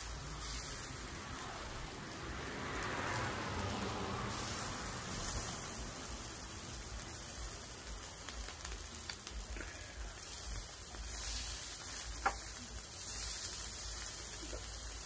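Beef and bell-pepper skewers sizzling on a tabletop grill: a steady crackling hiss, with one sharp click late on.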